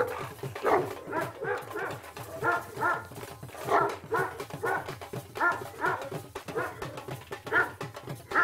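A large dog barking over and over, about fifteen barks at roughly two a second, with a music track's steady beat underneath.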